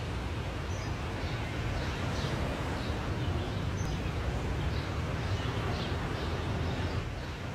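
Steady ambient background noise with birds chirping faintly and irregularly over it.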